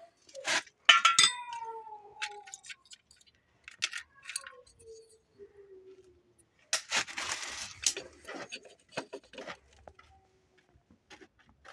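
Irregular metallic clinks and rattles from a Denso 7SEU17C air-conditioning compressor, with a brief rushing noise about seven seconds in.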